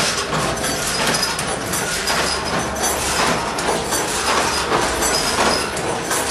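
Automatic shoelace tipping machine running, a steady dense mechanical clatter.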